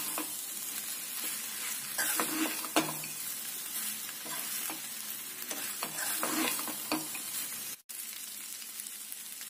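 Idli pieces frying in onion-tomato masala in a kadai, sizzling steadily while a metal spatula stirs them, scraping and clinking against the pan every second or so. The sound cuts out for an instant near the end, then the sizzling carries on.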